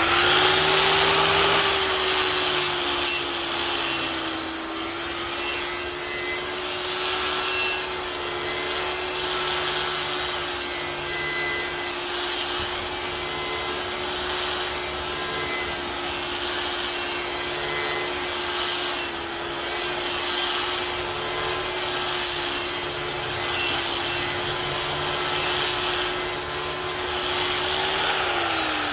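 A 4-1/2 in electric angle grinder with a 120-grit flap disc grinds the cutting edge of a steel lawn mower blade to sharpen it. The motor runs at a steady pitch under a hissing grinding rasp, and it begins to wind down right at the end.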